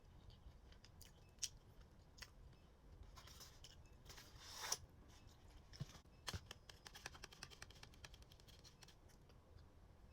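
Faint eating sounds from a sushi meal: scattered small clicks and crackles, with two short rustling swells near the middle and a quick run of fine clicks after that.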